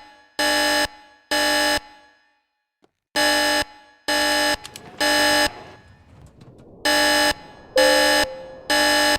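Building fire alarm horns sounding the temporal-three evacuation signal: loud half-second blasts in groups of three, with a longer pause between groups. Two blasts finish one group, then two full groups of three follow.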